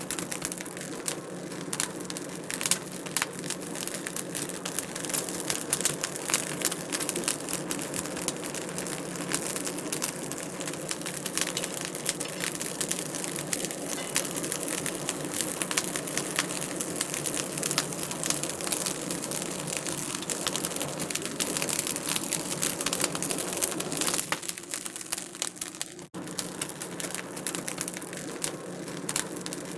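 Wood fire crackling in a fireplace: a steady, dense run of small sharp crackles and snaps, with a momentary break in the sound late on.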